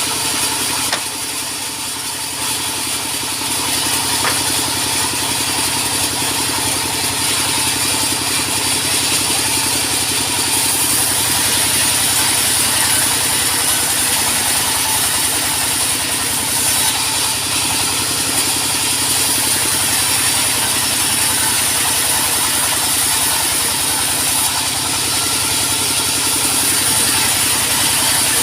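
Sawmill engine running steadily at a constant speed, with a high hiss above it that grows stronger for stretches and then eases.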